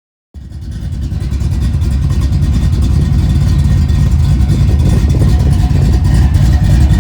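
1988 Fox-body Ford Mustang's engine running loud and steady, coming up in level over the first second.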